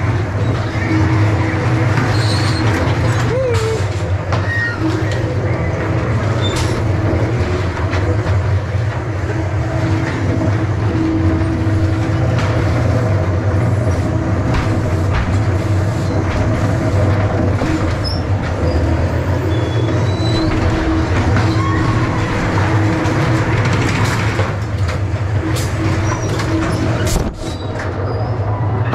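Ghost train ride car running along its rails: a steady low rumble with clicks and clacks from the wheels and a hum that comes and goes.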